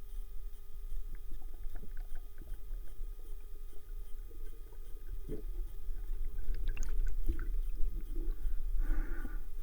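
Underwater ambience during spearfishing: a steady low rumble of water against the camera housing, with scattered small clicks and knocks and a short breathy rush near the end.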